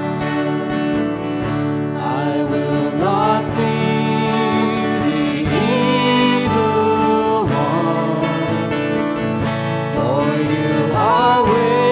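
Live worship song: acoustic guitar playing throughout, with voices singing the melody from about three seconds in.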